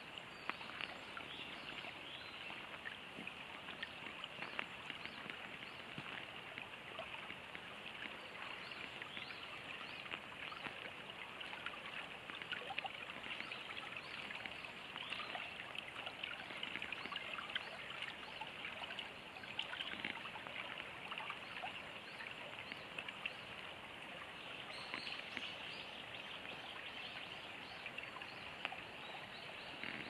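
Shallow water running along a narrow ditch: a steady babbling trickle and splash with many small quick rises and falls, and birds calling faintly now and then.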